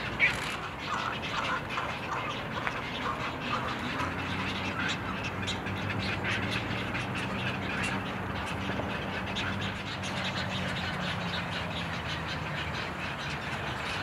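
Birds of an egret rookery calling: a busy run of short, harsh calls and clicks overlapping throughout, with one sharp click just after the start. A steady low hum sits underneath from about four seconds in until near the end.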